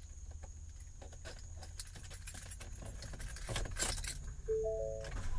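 Vehicle keys jangling and clinking as the van's ignition key is handled. Louder handling noise comes about three and a half seconds in, and a short electronic beep of a few stacked tones follows near the end.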